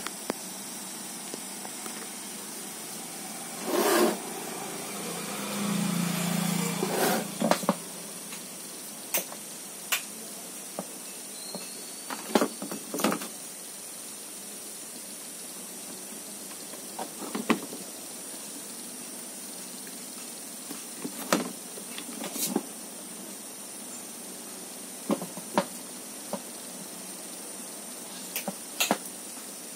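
Hands handling cables and plugging connectors into a TV mainboard: scattered sharp clicks and knocks of plastic connectors and wires, over a steady background hiss. A few louder, longer rustling noises come in the first eight seconds, one with a low hum.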